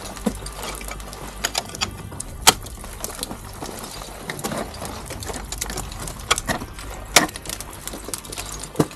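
Ice climbing: irregular sharp knocks and clicks, typical of ice axes and crampons striking into ice, over a steady low rumble. The loudest strike comes about two and a half seconds in.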